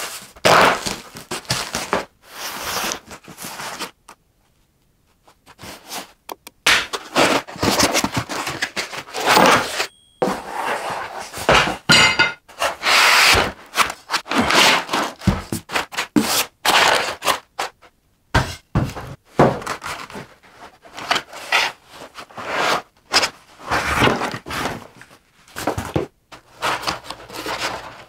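Unpacking a cardboard box of CNC router parts: irregular scraping and rubbing of cardboard and foam packing, with thunks as parts are lifted out and set down. It goes briefly quiet about four seconds in.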